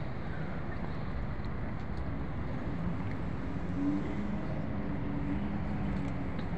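Steady low rumble of city traffic mixed with wind on the microphone, with a faint hum coming through in the middle.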